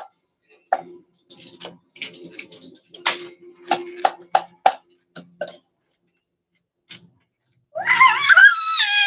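Rasping strokes of something being rubbed over a perforated sheet-metal grater, about two strokes a second, stopping a couple of seconds before the end. Near the end a loud, high, wavering cry.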